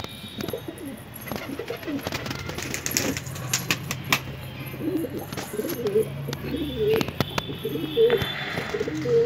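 A flock of desi high-flyer pigeons cooing, several birds calling over one another, more densely in the second half, with scattered sharp clicks.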